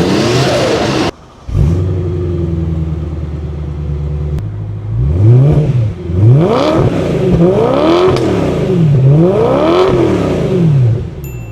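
Car engine heard from inside the cabin: a loud run cuts off about a second in, then an engine idles steadily and is revved about four times, each rev climbing and falling back in pitch.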